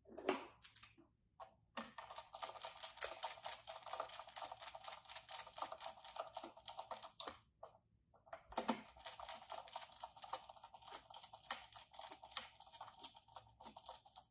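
Small screwdriver turning the screws of a pluggable terminal block to clamp wires in place: two long runs of rapid small clicks, with a short break about seven and a half seconds in.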